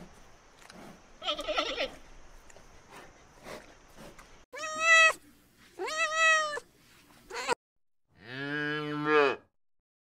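Faint clicks and a short high call, then a cat meowing twice, about a second apart. After a brief gap, a calf gives one longer, much lower moo.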